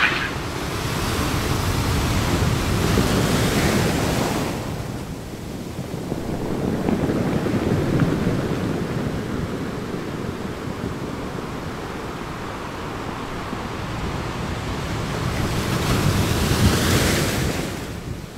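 Small waves washing up onto a sandy beach: a hiss of surf over a low rumble, swelling a couple of seconds in and again near the end.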